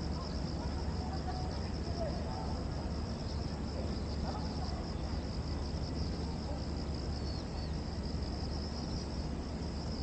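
Cicadas singing in a steady, continuous chorus over a low, even rumble.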